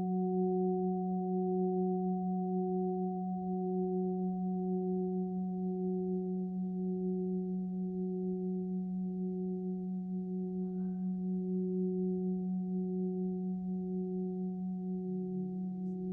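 50-inch Oetken Sound Creation Gong played with friction mallets, sounding a sustained low drone. A wavering, pulsing overtone sits above it, and the whole sound slowly fades.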